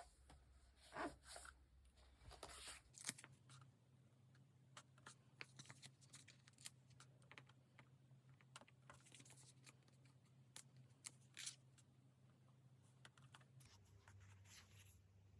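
Faint desk sounds of diary decorating with paper and stationery: scattered small clicks and taps, with a few short rustling swishes of paper.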